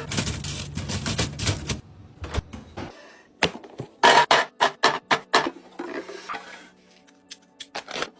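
Dense rattling clatter of small items for about two seconds, then a series of separate clicks and taps as items are handled and set down.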